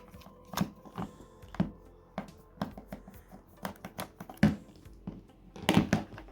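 Irregular clicks, taps and plastic knocks from handling a Greenlee DM-820 multimeter while its battery compartment is opened, with the loudest cluster of knocks near the end.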